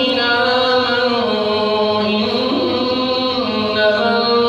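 A male reciter chanting the Quran in melodic tajweed style, drawing out long sustained notes that step up and down in pitch.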